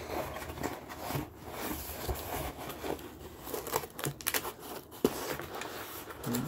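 A long cardboard shipping box being handled and opened: flaps rubbing and scraping with rustling, broken by scattered sharp taps and clicks, the sharpest about five seconds in.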